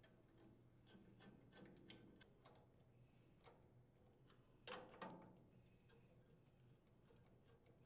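Near silence with faint metal clicks and ticks as a nut driver threads screws through a sheet-metal air filter base into the carburetor. Two louder clicks close together about five seconds in.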